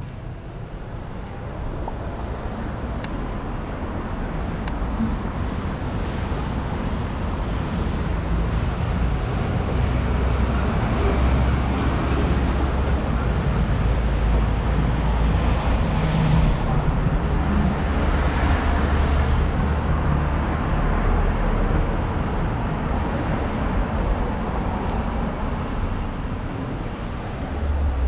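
City street traffic: cars driving past with a steady low rumble, fading in over the first several seconds and loudest around the middle.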